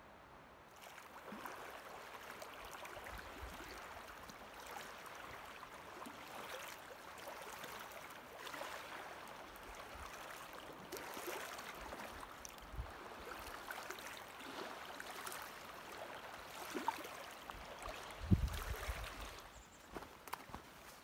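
Running water of a stream, a steady rushing and trickling that starts about a second in, with a few low thumps, the loudest near the end.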